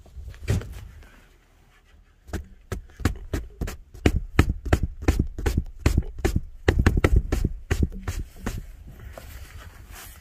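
A rapid, irregular run of sharp taps and knocks, several a second, starting about two seconds in and dying away near the end.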